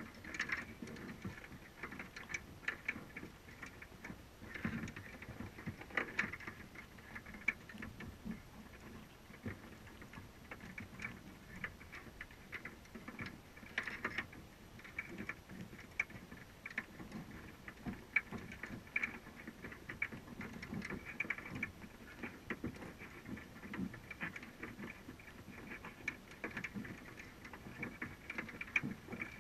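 Irregular light clicking and tapping, muffled through an underwater camera housing: crabs picking at a bait cage and crawling over a crab trap's wire mesh. A few sharper ticks stand out among the steady scrabble.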